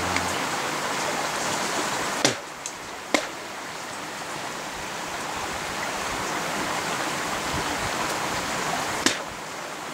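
Steady rushing noise like running water, with a sharp knock about two seconds in, another a second later and one near the end.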